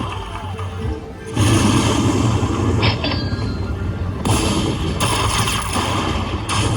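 Slot machine game music and effects: after a brief lull, a sudden loud burst of music with a heavy low boom starts about a second and a half in and keeps going, with bright jingling flourishes a few times.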